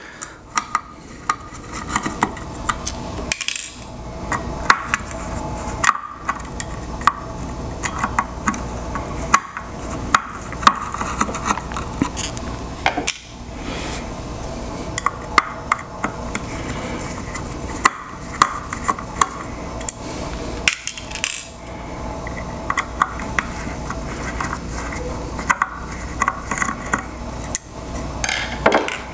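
Small screwdriver working at the screws, circuit board and plastic housing of a Ryobi 40V lithium-ion battery pack: irregular sharp clicks, taps and scrapes of metal on plastic, over a steady low hum.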